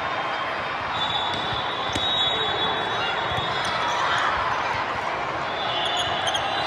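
Game sounds in a busy gymnasium: steady spectator chatter, sneakers squeaking on the court about a second in and again near the end, and the thud of a ball.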